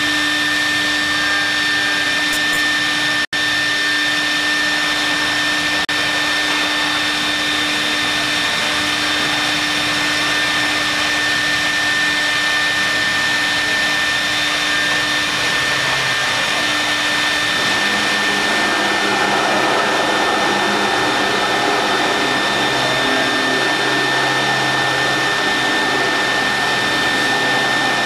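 CNC milling machine with a vacuum table running while machining marble: a steady high whine over even noise. The lower tones shift about 18 seconds in, and the sound drops out for an instant about three seconds in.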